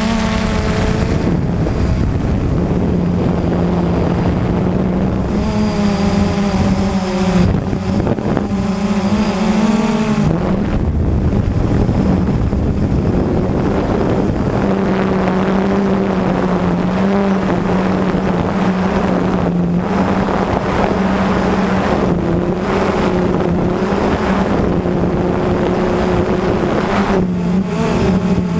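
Blade 350 QX3 quadcopter's four brushless electric motors and propellers, heard close up from the onboard camera, buzzing steadily with a hiss of wind noise on the microphone. Several times between about six and ten seconds in, the pitch wavers up and down as the motors change speed.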